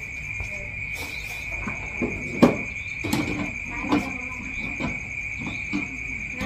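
Steady high-pitched chirring of crickets, with scattered knocks and clinks of things being handled, the loudest about two and a half seconds in.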